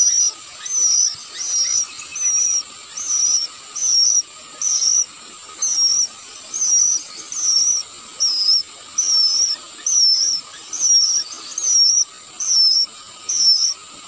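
Sooty-headed bulbul nestlings begging at the nest: a high, short, wavering chirp repeated evenly about three times every two seconds.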